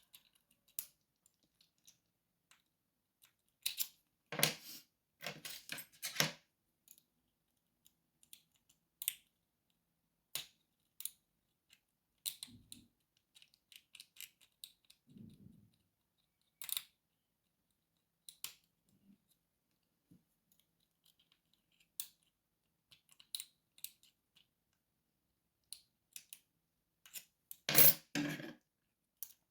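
Lock picking: small metallic clicks and scrapes of a pick and tension tool working inside a lock, with louder jangling rattles about four to six seconds in and again near the end.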